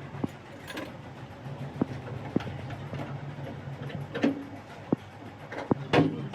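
Workshop work sounds: sharp knocks and taps at irregular intervals, about seven in all, over a steady low hum, with the loudest knock near the end.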